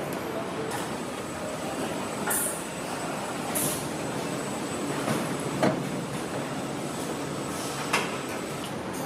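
Car assembly line ambience: a steady mechanical noise bed broken by two short hisses and a few sharp metal clicks, the loudest a little past halfway.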